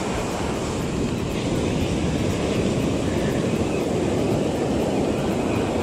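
Wind buffeting the microphone in a steady low rumble, over the hiss of surf washing around the feet.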